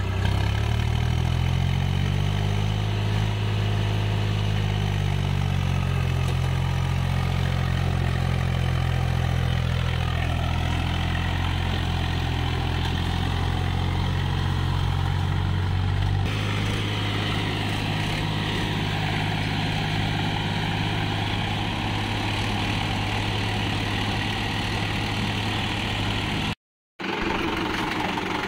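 Swaraj 735 FE tractor's three-cylinder diesel engine revving up and then running hard and steady while it pulls a loaded sand trolley through river water, with water churning around the wheels. The engine note rises over the first few seconds, changes abruptly about halfway through, and cuts out for a moment near the end.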